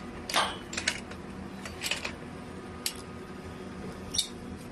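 A few scattered metallic clinks and clanks, about five in all, as the rebar coupler wrench is handled and clamped against steel rebar, over a steady low hum. The wrench's motor is not running.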